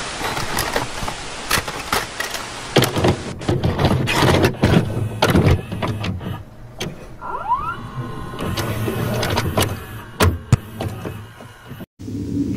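A VCR's tape mechanism loading and playing a videotape: clattering clicks and knocks over a motor's whirring, with a brief rising whine about seven seconds in. The sound cuts out completely for a moment just before the end.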